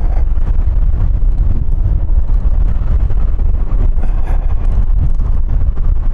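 Wind rumbling over the microphone while riding a Kymco 125cc motor scooter, with the scooter's engine running underneath, steady throughout.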